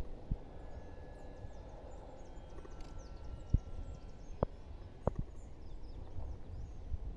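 Outdoor ambience: a low rumble of wind on the microphone, broken by a few sharp knocks spaced about a second apart, with faint high bird chirps.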